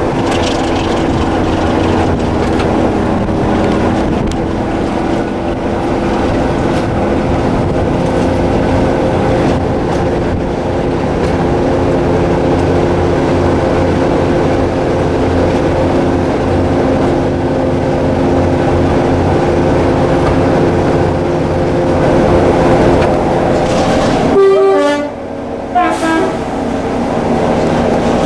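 Diesel locomotive running steadily, a dense engine sound with a held, steady pitch, broken by a short gap near the end before the engine sound resumes.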